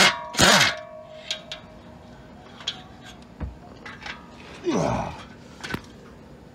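Metal hand tools clanking and clicking against metal while bolts are worked loose: a sharp metallic clank with a brief ring at the start, a second clatter just after, then scattered light clicks and another knock and clatter about five seconds in.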